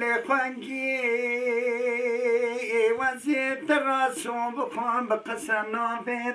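A man singing a Kurdish uzun hava unaccompanied: a long, wavering held note, then shorter ornamented phrases.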